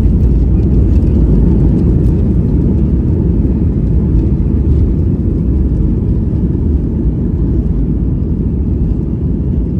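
Boeing 737 MAX airliner heard from inside the cabin: a loud, steady low rumble of engines and rushing air, easing slightly towards the end.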